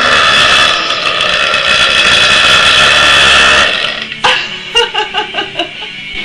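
A girl belching: one long, loud, drawn-out burp lasting nearly four seconds. About half a second later comes a sharper sound and then a quick string of short, choppy ones.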